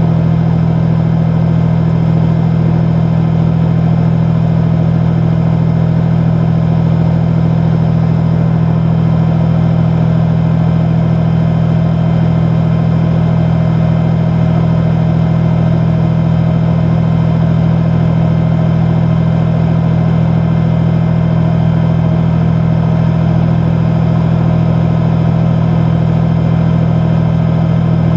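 Tank's diesel engine idling: a steady, unchanging low drone.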